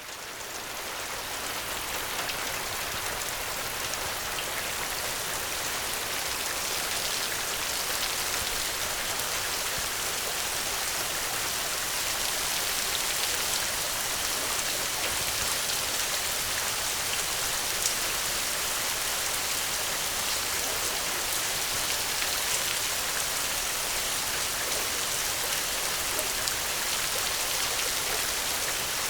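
Steady, dense rainfall hiss that fades in over the first couple of seconds, then holds even, with a few faint ticks and one sharper tick about 18 seconds in.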